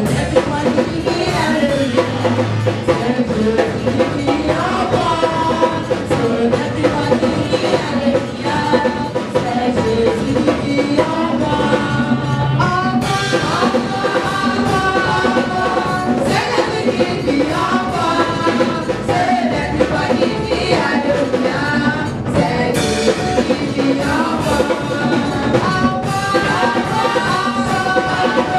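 Live gospel praise song: women singing into microphones over a drum kit.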